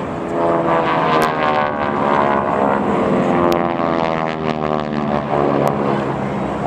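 Propeller warplane with a radial engine flying past low, its engine drone sweeping down in pitch as it goes by. Three faint sharp clicks sound over it.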